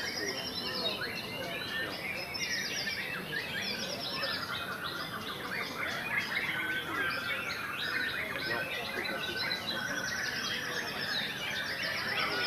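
Many caged white-rumped shamas singing at once: a dense, unbroken overlap of fast, varied whistled phrases and trills.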